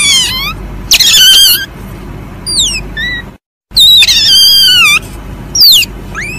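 Palm civet (musang) giving a series of shrill calls that slide down in pitch, with short falling chirps between them. The sound drops out briefly a little past halfway, then the calls carry on.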